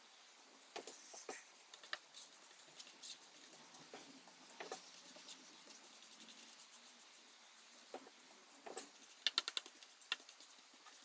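Faint brushing and scattered light clicks of a bristle brush laying varnish onto a carved wooden chair panel, with a quick run of sharper clicks about nine seconds in.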